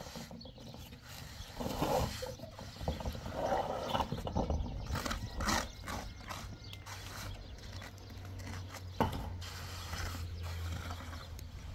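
Hand trowel scraping and smoothing wet cement mortar in irregular strokes, with a knock about nine seconds in. A low steady hum sits underneath in the last few seconds.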